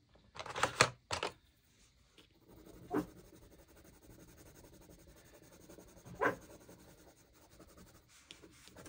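Wooden Brutfuner colored pencils clicking against each other and the metal tin as one is put back and another lifted out, followed by a colored pencil scratching steadily on paper while shading. Two single knocks come about 3 and 6 seconds in.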